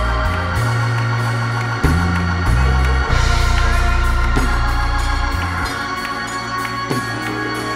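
Church worship music on organ: sustained chords over a low bass line that moves to a new note every second or so.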